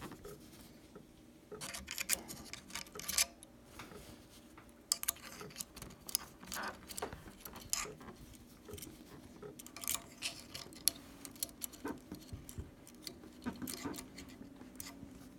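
Irregular small metallic clicks and taps as the parts of a Marlin 336 lever-action rifle are handled and fitted together during reassembly.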